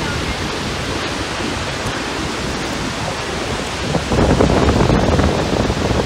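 Large waterfall rushing: a steady, dense hiss of falling water that grows louder and rougher about four seconds in.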